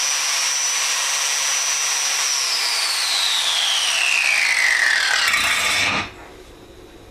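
Fein angle grinder with a 5-inch disc, running free with no load: a high steady whine that, about two and a half seconds in, slides down in pitch as the motor slows, and the sound stops abruptly about six seconds in.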